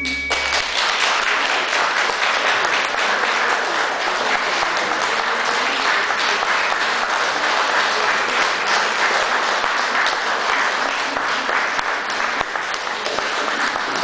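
Audience applauding: dense, steady clapping that eases a little near the end. The song's final note dies away just as the applause begins.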